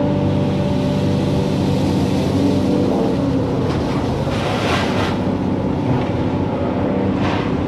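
Excavator's diesel engine running steadily, with a rushing hiss that swells up about four seconds in and again briefly near the end.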